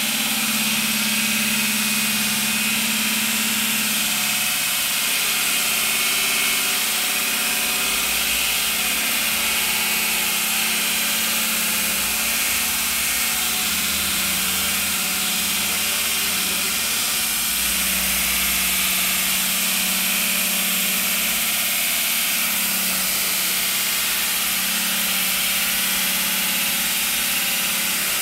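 Rail-mounted concrete saw with a large diamond blade running and cutting through a concrete slab: a loud, steady grinding hiss over a low motor hum.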